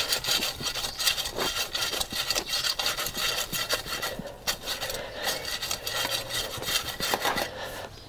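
A blunt garden hoe scraping through the soil of a vegetable bed in quick, repeated strokes.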